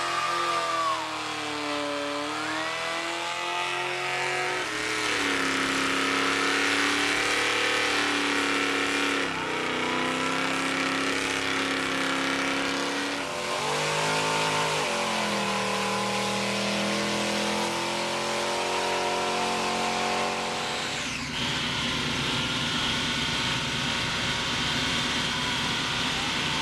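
Car engines running and revving as vehicles go by one after another, the engine pitch rising and falling several times. About 21 seconds in, a lower, rougher engine rumble takes over.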